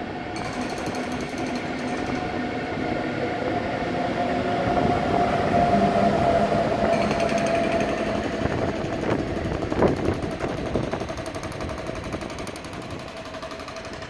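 A DB Class 101 electric locomotive and its measurement-train coaches rolling slowly past, wheels clattering and knocking over rail joints and points, with a steady whine that swells as the locomotive passes. The sound fades over the last few seconds as the train pulls away.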